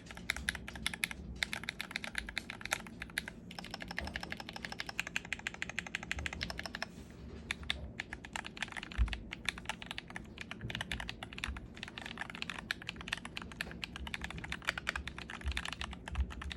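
Fast typing on a mechanical keyboard fitted with GMK keycaps: dense runs of rapid key clacks with a few brief pauses.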